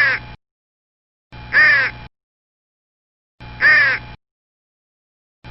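Crow cawing: single caws about two seconds apart, each rising then falling in pitch, with dead silence between them. The end of one caw opens, two full caws follow, and another begins right at the end.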